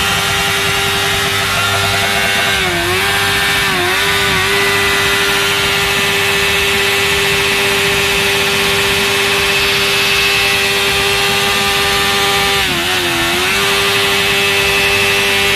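Sport motorcycle engine held at high revs during a burnout, the rear tyre spinning on the paving. The revs stay nearly steady, dipping briefly a few times about three to four seconds in and again near the end.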